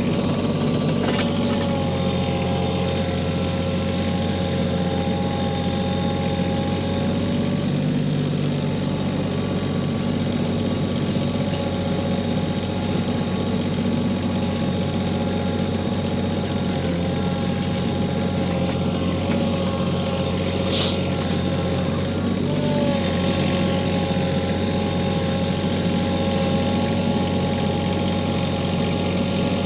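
Kioti CK4010 compact tractor's diesel engine running steadily under a working load, with a steady high whine above it that shifts slightly in pitch a few times as the tractor drags snow with its front bucket. One short sharp click about two-thirds of the way through.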